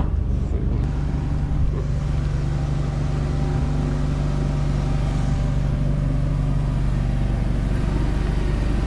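A car engine idling steadily, a low, even hum, with a sharp click right at the start.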